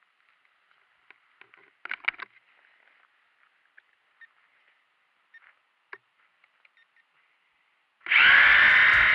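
Faint, muffled hiss from a Syma X8C quadcopter's onboard camera, broken by scattered clicks and a brief cluster of knocks about two seconds in. Loud music starts abruptly near the end.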